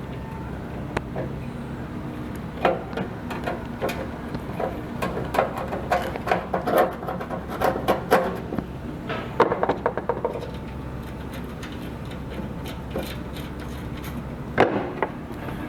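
Clicks, taps and rattling of tools and small parts being handled while a replacement capacitor is mounted in a microwave oven, in a busy cluster over several seconds and again briefly near the end, over a steady low hum.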